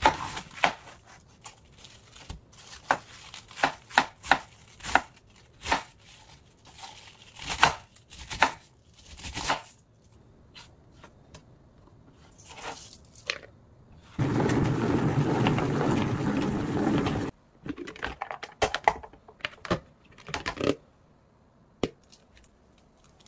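Kitchen food-prep sounds: a knife knocking irregularly on a cutting board, with other handling clicks. About fourteen seconds in, a steady rushing noise runs for about three seconds and stops abruptly, followed by a few more knocks.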